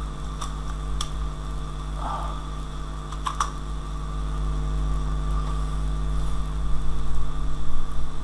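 Steady electrical hum on the recording microphone, with a few sharp computer keyboard keystrokes, about three in the first half.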